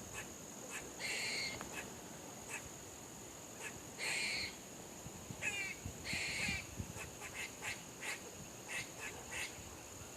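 Squirrels barking: three longer, harsh calls spaced a couple of seconds apart, with short chucking calls and a quick squeaky series between them.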